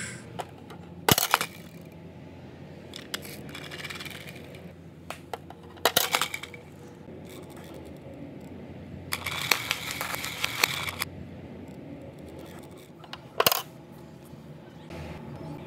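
Hard plastic toys being handled: sharp clicks and clacks from a toy bus garage playset and a toy bus, with about two seconds of rolling rattle in the middle as the toy bus is pushed along a wooden floor.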